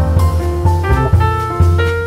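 Background jazz music: piano over a plucked bass line that changes note about every half second, with a drum kit keeping time.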